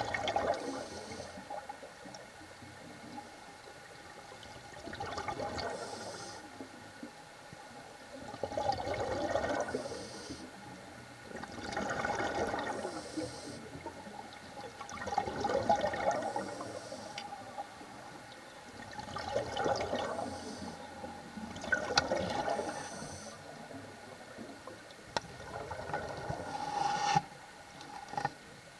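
A scuba diver breathing through a regulator underwater: exhaled air bursts out as a gurgling rush of bubbles about every three to four seconds, with a fainter hiss of inhalation between breaths.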